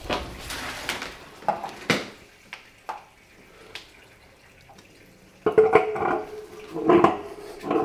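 Sharp clicks and light knocks as a hemp-wrapped threaded brass fitting is handled and refitted onto a water heater. After a quiet pause, a run of loud, pitched squeaks starts about five and a half seconds in.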